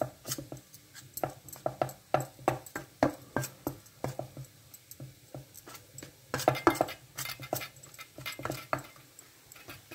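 A metal spoon scraping and clinking against a metal plate while mixing ghee into dry wheat flour: a run of irregular light clicks and scrapes, with a louder cluster a little after six seconds in.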